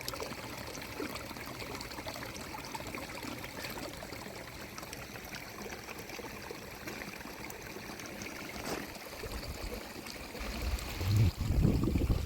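Steady running or trickling water, with a louder low rumbling near the end.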